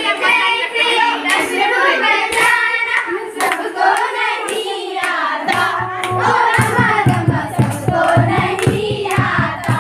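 A group of girls singing together and clapping their hands in rhythm. About halfway through, a low, repeated beat joins in under the singing.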